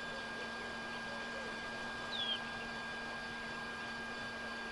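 Egyptian goose gosling giving one short, high peep that falls in pitch, about two seconds in, over a steady background hiss and a thin steady tone.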